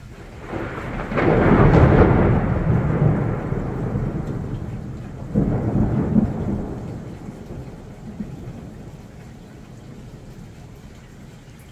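Thunder rolling: a deep rumble builds about half a second in and is loudest around two seconds, a second peal breaks in at about five and a half seconds, and both die away slowly.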